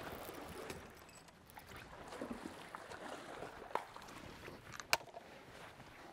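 Quiet water noise around a fishing boat on a lake, with two sharp clicks or taps about two thirds of the way through.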